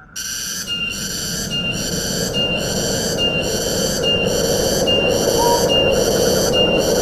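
Wind rushing through forest trees, over a steady high-pitched buzzing call that breaks briefly about once a second with a short falling note at each break.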